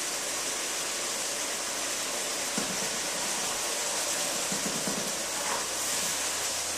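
Frying pan sizzling with a steady hiss as a cornstarch-thickened tamari and honey sauce cooks down over chicken and asparagus.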